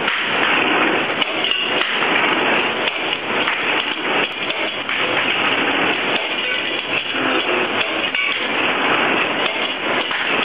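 Vertical straightening machine running, with continuous rapid, irregular metallic knocking and clattering.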